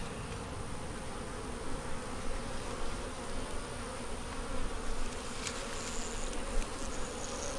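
Honey bees buzzing in a steady hum around an opened hive while its frames are being inspected.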